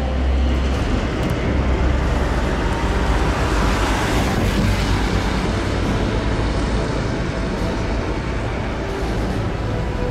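2M62K twin-section diesel locomotive's two-stroke 14D40 engines running with a deep, steady rumble, the noise swelling about four seconds in as the engine is throttled up and puffs black exhaust smoke.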